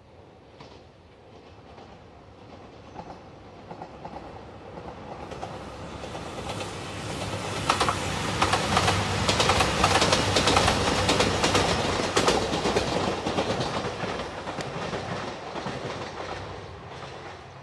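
JR Shikoku 2700 series diesel express train passing. The rumble builds over several seconds and peaks about halfway through with rapid clickety-clack of wheels over rail joints, then fades as the train moves away.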